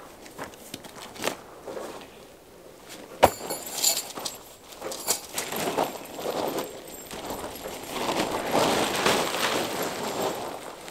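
Nylon tent fabric rustling and crinkling as a tent is pulled out of its bag and shaken open, louder in the last few seconds. One sharp click about three seconds in.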